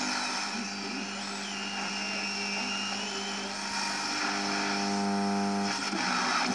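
Static and hiss from a Maxitronics kit regenerative shortwave receiver playing through a loudspeaker as it is tuned across the band, over a steady hum from the loudspeaker setup. A faint whistle slides in pitch about a second in and then holds: the receiver beating against an empty carrier.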